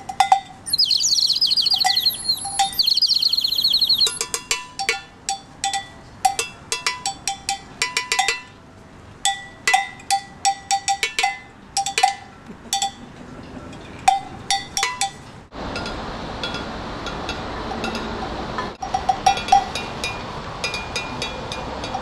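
Small metal percussion, a rack of tuned metal pieces struck with sticks in irregular, clinking strikes that ring briefly at one pitch. A high warbling call sounds over the first few seconds, and the later strikes are sparser over a steady hiss.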